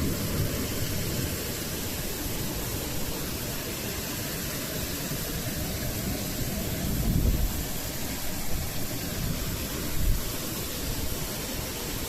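Strong storm wind rushing steadily, with gusts buffeting the microphone as low rumbles about seven and ten seconds in.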